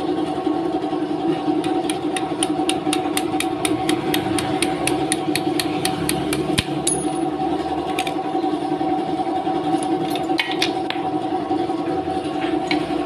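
A machine running with a steady hum. Over it come light metallic clicks, about four a second for several seconds, then a few more spaced apart.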